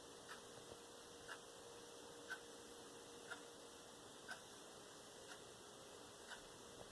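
Faint, evenly spaced ticking about once a second, like a clock in the room, over a faint steady hum.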